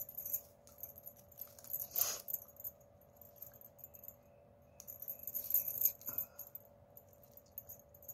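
Stiff plastic craft wire strands rustling and clicking against each other as they are pulled through and knotted by hand, with the loudest rustles about two seconds in and again around five to six seconds in.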